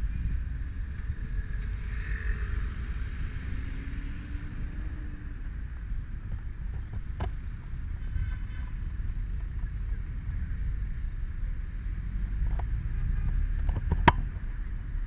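Yamaha motorcycle idling at a stop with surrounding traffic, a steady low rumble heard dull and muffled through a camera's built-in microphone. Two sharp clicks, one midway and a louder one near the end.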